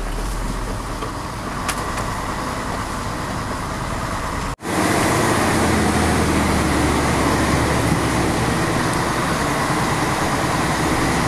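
Heavy truck running on the road: steady engine and tyre noise. The sound cuts off abruptly about four and a half seconds in, then resumes louder with a deeper, steady engine drone.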